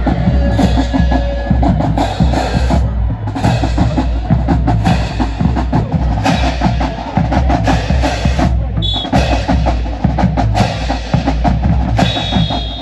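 Marching band drumline playing a fast, loud percussion cadence: dense rapid drum strokes with a steady low bass-drum pulse.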